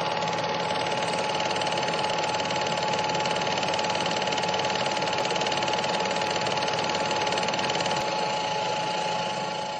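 A machine running evenly with a rapid, steady clatter and a constant hum, fading slightly near the end.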